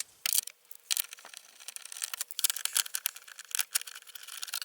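Irregular quick clicks and rattles of hand work on a truck's plastic heater duct and housing.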